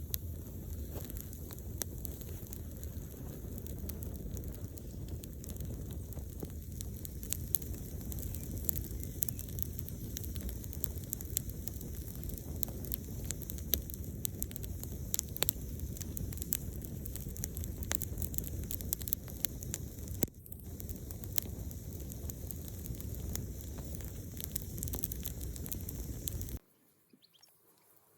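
Open wood fire crackling, with frequent sharp pops over a steady low rumble; it stops abruptly near the end.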